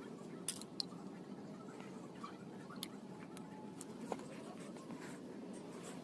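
A few sharp clicks and taps, about five spread across the stretch, the first two close together near the start, over a steady low hum.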